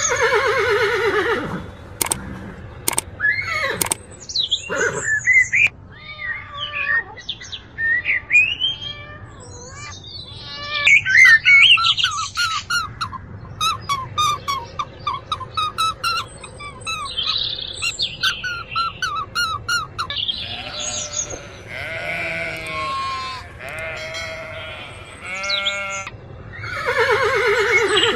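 Horses whinnying near the start and again near the end, with a run of assorted short bird chirps, squawks and other animal calls in between.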